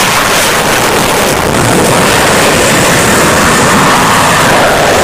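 Loud, steady jet engine noise from a Dassault Rafale fighter jet flying low past and climbing at high power.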